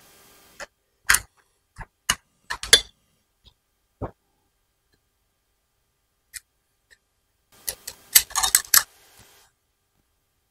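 Sharp small clicks and knocks of hardware being handled: a bolt pushed through the side holes of a metal-tube frame and its nut threaded on. The clicks are scattered through the first few seconds, with a quick cluster of rattling clicks about eight seconds in.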